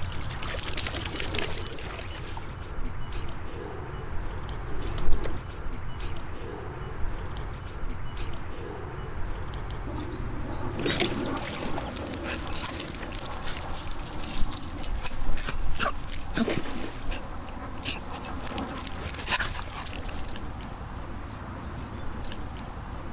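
Two soft-coated wheaten terriers splashing and sloshing water in a plastic kiddie pool, with a few short dog barks. Partway through, the splashing grows busier as the dogs jump out spraying water and run across the grass.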